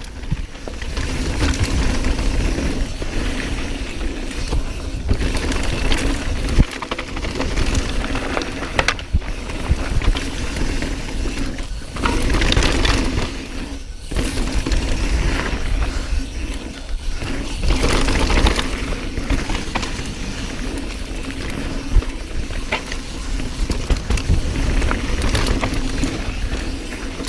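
Mountain bike descending a rough downhill trail at speed: wind rushing over the camera mic, tyres on dirt, and the bike rattling and knocking over brake bumps.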